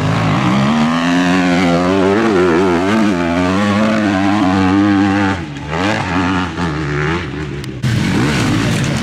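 Enduro dirt bike engine revving, its pitch rising and falling again and again as the throttle is worked. The sound drops away about five and a half seconds in, breaks off sharply near the end, and picks up again.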